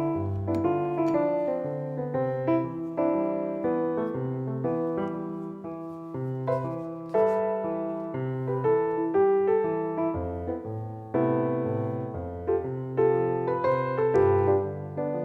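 Background piano music: a gentle melody of single notes over a low accompaniment.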